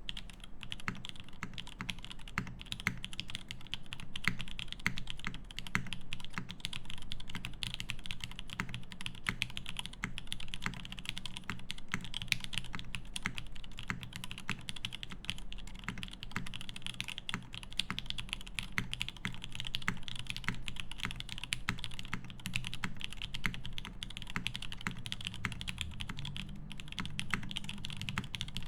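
Fast, continuous typing on a TGR Jane V2 CE custom mechanical keyboard with lubed SP-Star Meteor White linear switches, a carbon fibre plate and GMK keycaps: a rapid, unbroken stream of keystrokes.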